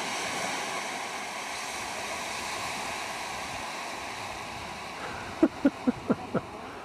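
Small waves washing onto a rocky shoreline, a steady rushing noise. About five seconds in, five short, sharp pitched sounds follow one another quickly, all within about a second.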